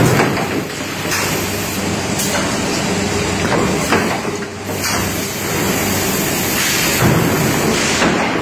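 Cookware production-line machinery and roller conveyors running with a steady mechanical noise, broken by several sharp knocks and clatters, the loudest at the start, about four seconds in and about seven seconds in.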